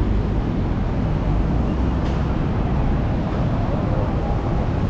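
Busy city street ambience: a steady low rumble of traffic and surroundings, even throughout.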